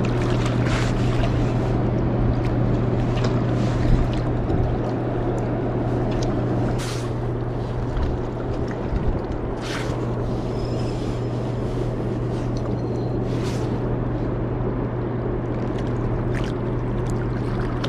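Steady low roar of fast-moving water below a dam, with a few light clicks scattered through it.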